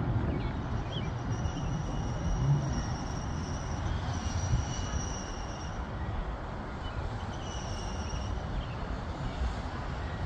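Jet engines of a climbing jet after takeoff, a steady low rumble with a thin high-pitched whine that comes and goes.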